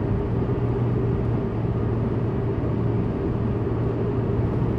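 Steady cabin noise of a car driving along a highway: road and engine drone with a constant low hum.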